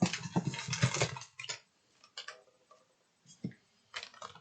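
Items and packaging being handled during an unboxing: a dense run of crackling clicks for about a second and a half, then scattered single clicks and taps.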